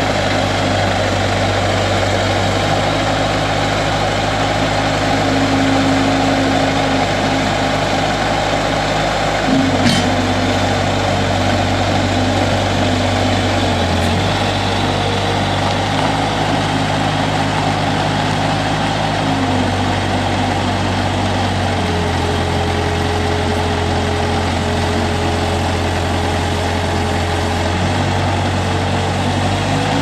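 Bobcat S150 skid steer's Kubota V2203 four-cylinder diesel engine running steadily, its tone stepping up and down several times. There is a single sharp click about ten seconds in.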